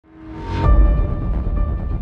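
Background music fading in. It swells up over the first half-second into deep bass and held notes.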